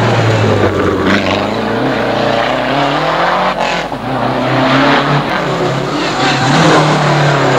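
Rally car engine running hard through a night-stage corner, its pitch rising and falling with the throttle and gear changes, with tyres squealing as it slides.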